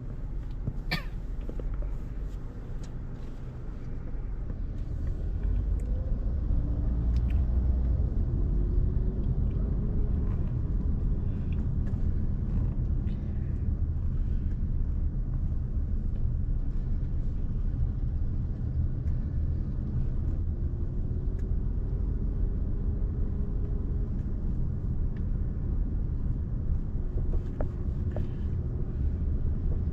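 Car driving on a road: steady low rumble of engine and tyres, growing louder a few seconds in as the car picks up speed, with the engine note rising and falling.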